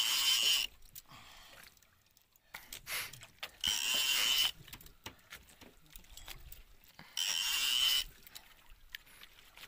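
Spinning fishing reel whirring in three short bursts about three and a half seconds apart while a hooked fish is fought on a bent rod.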